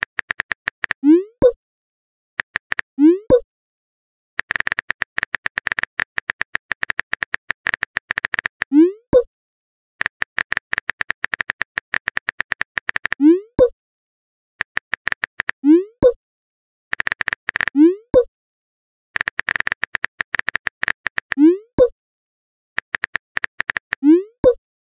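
Chat-app sound effects: bursts of rapid typing clicks, each followed by a short rising "bloop" as a message is sent. This repeats about eight times.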